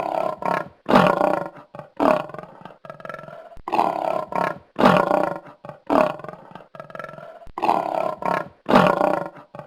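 Lioness roaring in a series of short, loud calls, about one a second with a few brief pauses, each starting abruptly and trailing off.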